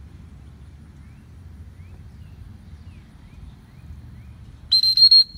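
A loud, high, steady whistle lasting about half a second near the end, over a low steady rumble and a few faint high chirps.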